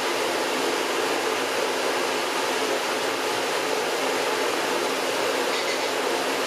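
Countertop blender running steadily, a loud motor whir with a low hum, as it purées frozen corn kernels with water into a smooth soup base.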